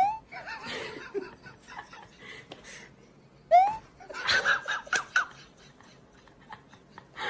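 A person giggling, with two short rising squeaks: one at the start and one about three and a half seconds in.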